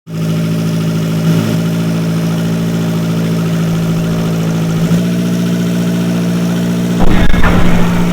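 Vehicle engine sound effect running at a steady pitch, starting abruptly. About seven seconds in, a louder, rougher rumble joins it.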